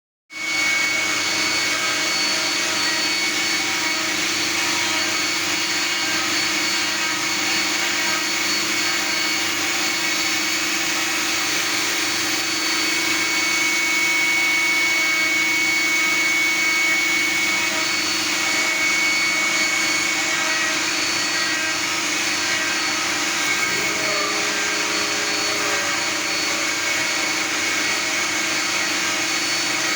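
CNC wood-turning lathe running steadily, its motors giving a high whine over a broad hiss as it cuts.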